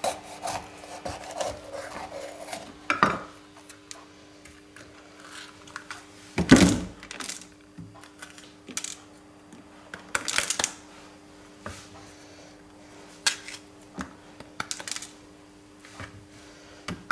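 Kitchen knife and hands working a red bell pepper on a plastic cutting board: scattered knocks and clicks of the blade and pepper against the board, the loudest about six and a half seconds in. A faint steady hum runs underneath.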